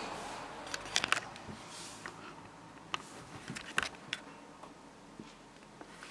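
Kittens scampering and pouncing on a shag rug: soft scuffs and a scatter of short, sharp taps and clicks, a quick cluster about a second in and a few single ones later, with no string ringing.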